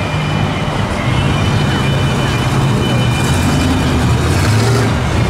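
A car engine running with a low, steady rumble as the car drives off, getting a little louder about a second in.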